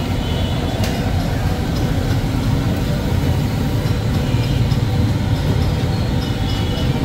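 Metal spatula scraping and tapping on a large iron tawa as mutton liver fries on it, with a sharp clink about a second in, over a steady low rumble of street traffic.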